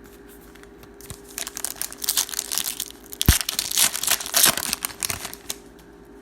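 Plastic wrapper of a Panini Prizm Football trading-card pack being torn open and crinkled for a few seconds, with one sharp snap about halfway through.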